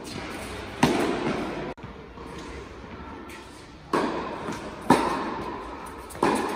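Tennis ball being struck by rackets and bouncing on an indoor hard court: a few sharp pops, each ringing on in the echo of a large hall, about a second in and then three more around the middle and near the end.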